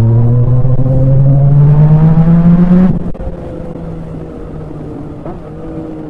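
Yamaha MT-09's three-cylinder engine accelerating, its pitch rising steadily for about three seconds. Then it drops suddenly to a quieter, lower note that slowly falls.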